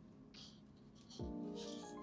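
Soft lofi background music with a kick drum coming in about a second in, over two brief rustles of stickers and a clear plastic zip pouch being handled.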